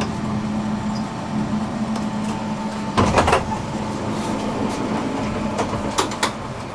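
Tram interior at a stop: the tram's electrical equipment hums steadily, and the sliding doors clatter briefly about three seconds in. A couple of sharp clicks follow near the end.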